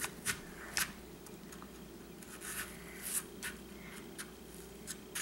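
Knife scraping and cutting out the flesh in the middle of a raw apple: an irregular series of short scrapes.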